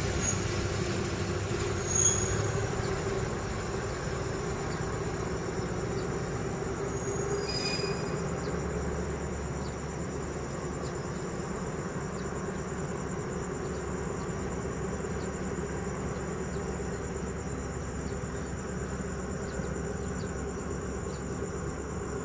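Passenger train's coaches rolling away at low speed, a steady rumble that slowly fades as the train leaves the station, with short high metallic squeaks from the wheels about two and eight seconds in. Crickets chirp steadily over it.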